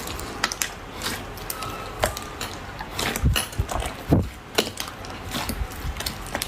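Slime being squeezed and pressed by hand, giving irregular wet clicks and pops, with a few louder ones about halfway through.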